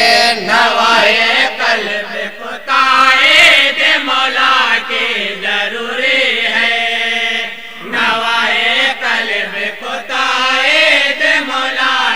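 A voice chanting a naat, an Urdu devotional poem, in long, drawn-out melodic phrases.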